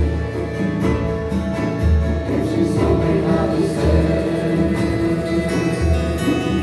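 Santo Daime hymn music: voices singing with guitar accompaniment, and a deep bass note that comes round about every two seconds.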